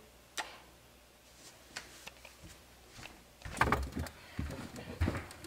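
Refrigerator door opened about three and a half seconds in, followed by a run of clicks and knocks, after a lone click near the start.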